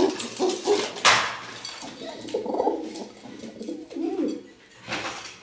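Domestic pigeons cooing in a cage: a few low, wavering coos. A short sharp rustle or knock about a second in.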